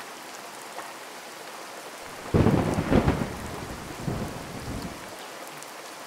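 Steady rain with a roll of thunder that swells about two seconds in and rumbles for around three seconds before fading back to the rain.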